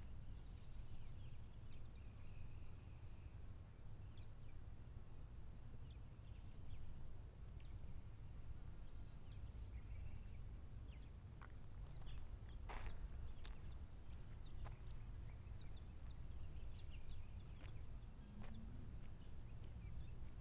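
Quiet outdoor bush ambience: a steady low rumble like wind, with faint scattered bird chirps and small clicks, and one sharper tap about thirteen seconds in.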